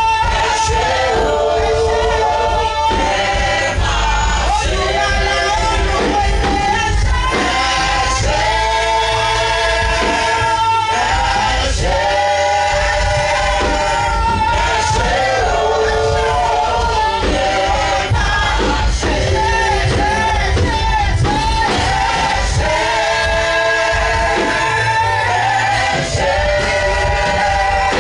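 Gospel worship music: several voices singing long held notes together over a band with a heavy bass.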